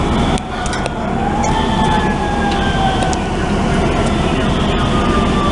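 Emergency vehicle siren wailing, rising about a second in and then sliding slowly down in pitch, heard over a steady low rumble.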